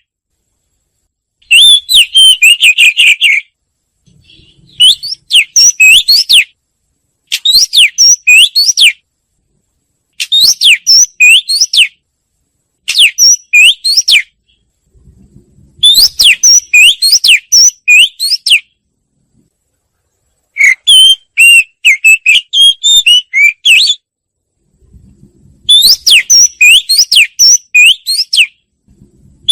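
Wagtail song: about eight loud phrases of quick, high, up-and-down whistled notes, each a second or a few seconds long, separated by short clean silences.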